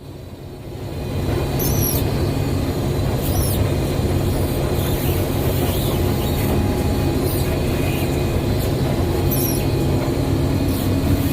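Combine harvester running steadily at working speed, with faint, brief high squeaks every second or two.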